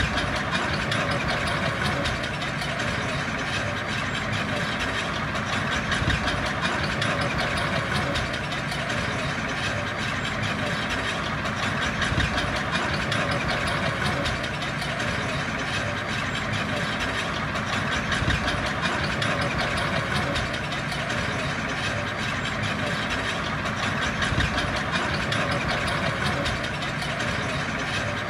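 Diesel engine of heavy earthmoving equipment running steadily at an even pace.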